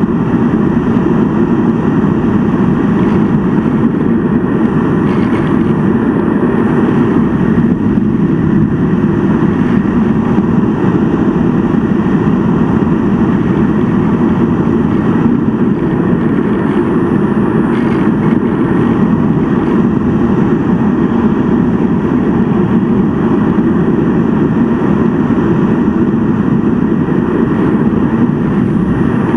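Steady rushing noise of a Heron RC model glider in flight, picked up by its onboard camera: airflow and drive noise, loud and unchanging throughout.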